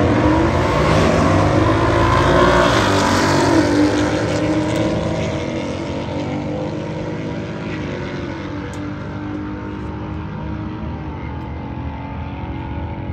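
Two drag-racing cars launching side by side and accelerating hard down the strip, their engines rising in pitch. The sound is loudest over the first few seconds, then fades steadily as the cars pull away downtrack.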